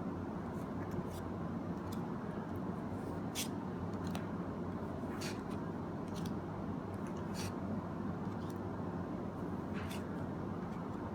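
Pokémon trading cards being slid off one another and flipped through by hand, a short papery swish every second or two over a steady low room hum.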